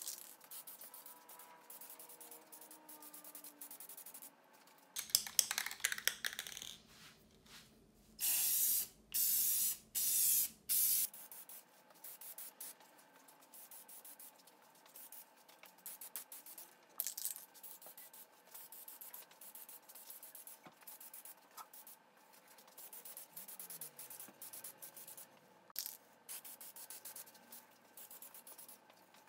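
Aerosol spray paint can: a few seconds of rattling as the can is shaken, then three hissing bursts of about a second each near the middle, followed by shorter, lighter spray hisses.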